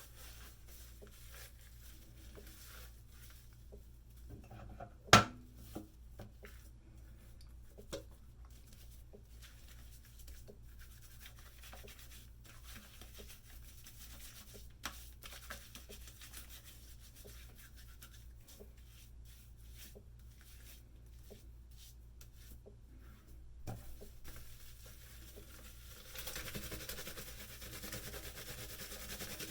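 Soft, faint rubbing of shaving lather being worked onto the face, with scattered small clicks and one sharp click about five seconds in; the rubbing grows steadier near the end.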